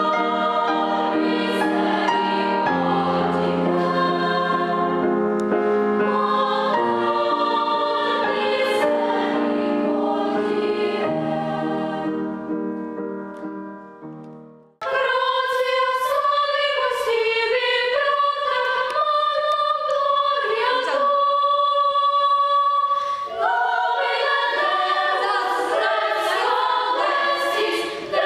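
Children's choir singing in several parts. Around the middle the singing fades out, then after a sudden cut a higher passage starts, with one long held note a few seconds later.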